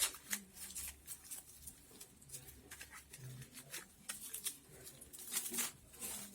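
Strips of palm frond being handled and worked into the weave: scattered light rustles and crinkles.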